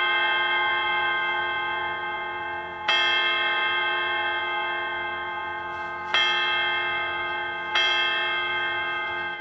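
A bell tolling the twelve o'clock hour: struck three more times, about 3, 6 and 8 seconds in, each stroke ringing on with a bright stack of overtones and dying away slowly over the ringing of the stroke before. The ringing stops abruptly at the end.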